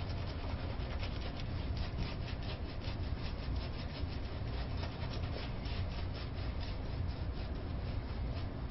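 Razor blade scraping through lathered whiskers in quick, short repeated strokes, about three a second, over a steady low hum: a third shaving pass with a Feather Seikan carbon steel single-edge blade in a Valet razor.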